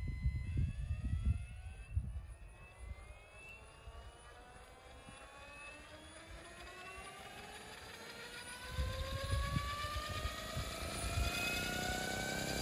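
Vario Chinook model helicopter's rotor drive spooling up: a whine that rises slowly and steadily in pitch as the tandem rotors gather speed before lift-off. A steady tone stops about half a second in, and wind gusts on the microphone rumble at the start and again in the last few seconds.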